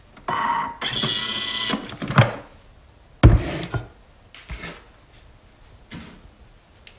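Thermomix food processor just stopped after blending batter, giving a short mechanical whir in two parts about a second and a half long. Then come several knocks and clatters of the lid and bowl being handled, the loudest about three seconds in.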